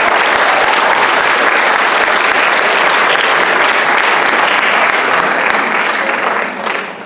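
Audience applauding loudly, dying down near the end.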